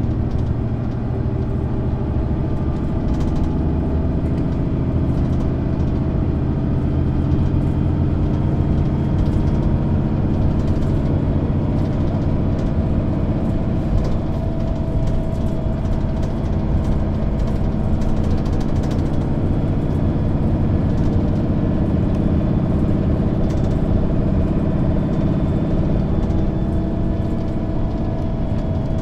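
Mercedes-Benz O530 G II (Citaro G) articulated bus's OM 457 straight-six diesel running steadily, a constant low hum with a faint tone that drifts slightly in pitch.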